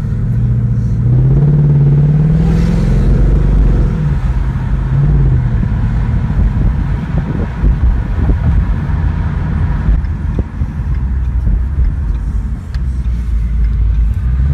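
Ford Mustang GT California Special's V8 heard from inside the cabin, accelerating with a rising engine note over the first few seconds, then cruising steadily with low road rumble.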